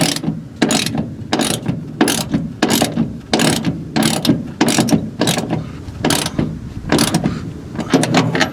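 Socket ratchet wrench clicking in repeated strokes, about one every two-thirds of a second, as it tightens the nut on a seat belt anchor bolt.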